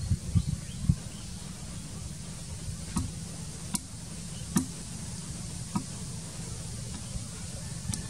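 A steady low rumble with a handful of sharp, separate clicks and snaps spread through it, a second or more apart.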